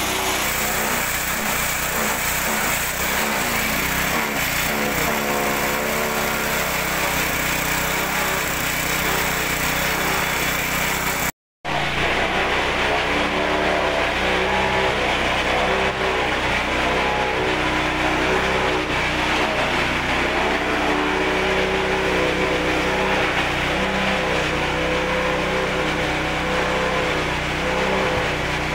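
Small petrol engine of a forage chopper (chaff cutter) running steadily, with a sudden brief dropout about a third of the way in.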